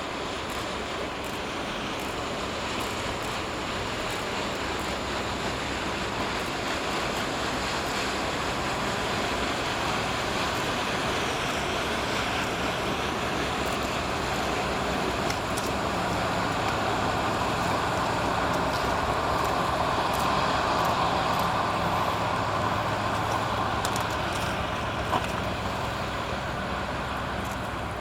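A small coast guard patrol boat's engines running as it passes through the strait, with the wash of water along its hull. The low hum grows louder towards a peak about three-quarters of the way through, then eases slightly.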